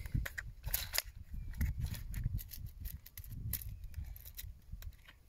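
Scattered sharp clicks and taps of fingers handling a small plastic tackle box or packet while picking out a micro swivel, over a low rumble of wind on the microphone.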